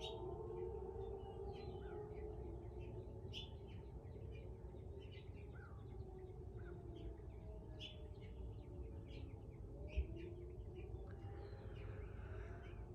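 Distant outdoor tornado warning siren giving a steady tone that slowly drops in pitch and rises again near the end, with small birds chirping throughout. A single thump about ten seconds in.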